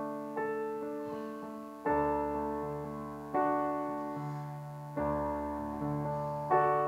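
Keyboard in a piano voice playing the slow introduction to a hymn to Our Lady. A new chord is struck about every one and a half seconds and left to ring and fade, with a deep bass note under some of them.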